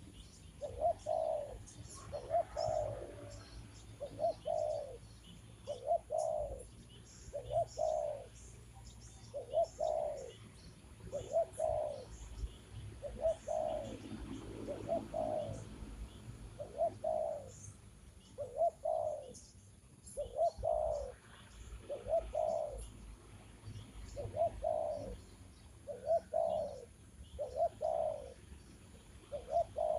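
Dove cooing: a short double coo repeated at a steady pace about every one and a half seconds, with faint high chirps of small birds around it.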